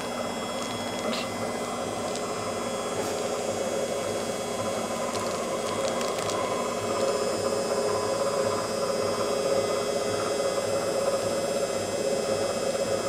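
Steady mechanical hum with a low rhythmic pulse, and a few faint clicks now and then.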